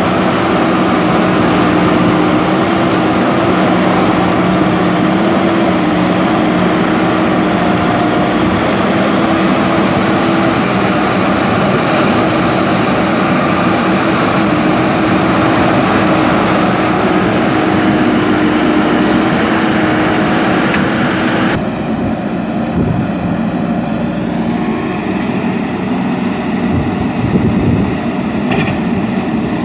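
JCB 3DX backhoe loader's diesel engine running steadily, with a steady hum. About two-thirds of the way in, the sound cuts abruptly to a duller, more distant engine note.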